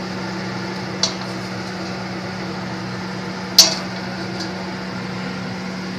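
Kitchen pan and utensil sounds over a steady low hum: a light clink about a second in, then a sharp metallic clank a few seconds later as the pan or a utensil is knocked on the stove.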